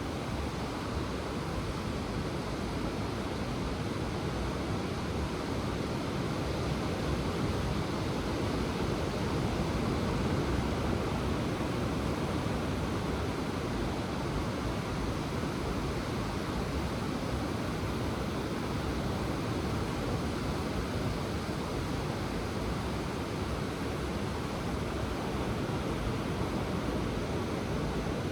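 Ocean surf washing continuously onto the shore, a steady rushing noise that swells slightly about a third of the way in.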